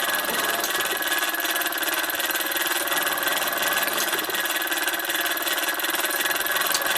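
Bowman M158 single-cylinder model steam engine running steadily on compressed air, with a fast, even exhaust beat.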